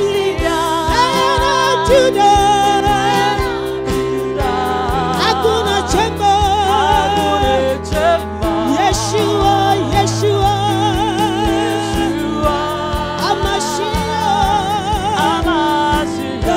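Gospel worship music: voices singing with wide vibrato over sustained keyboard chords and a regular drum beat.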